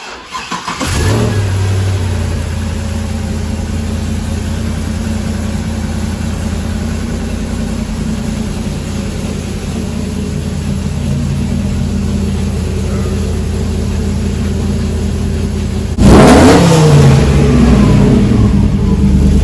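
A vehicle engine running at a steady idle. About three seconds before the end it suddenly gets louder, with its pitch going up and down as it is revved.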